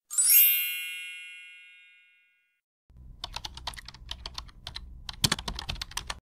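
A bright chime that sweeps up at once, then rings and fades over about two seconds. After a short pause comes a rapid, uneven run of computer-keyboard typing clicks lasting about three seconds. The chime is the louder of the two.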